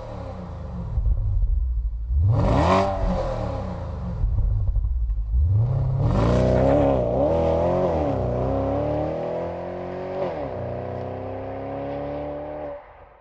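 Supercharged 6.2-litre LS3 V8 of a Holden VF2 Commodore SSV with the Walkinshaw 550 package, running and being revved: a quick rev about two seconds in, then the revs rising and falling several times from about six seconds, settling to a steadier, slowly climbing note that cuts off shortly before the end.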